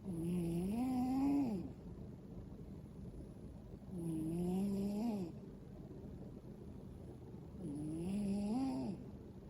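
A sleeping cat snoring loudly: three long snores about four seconds apart, each a low buzzing tone that rises slightly in pitch and then drops away as the breath ends.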